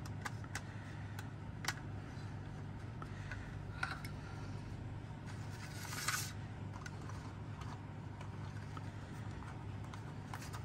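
Scattered light clicks and small knocks of clock parts and tools being handled, with a brief scraping rustle about six seconds in, over a steady low hum.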